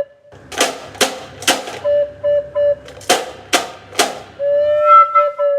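Recorder playing, improvised: three short notes on the same pitch, then one long held note near the end, over sharp percussive clacks that come in quick groups of three.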